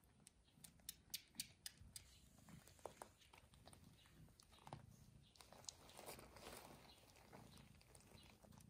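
Near silence with faint, soft sounds from a mother cat and her day-old kittens in a wicker basket: a quick run of small wet ticks in the first two seconds, then a soft rustle of fur and bedding about halfway through.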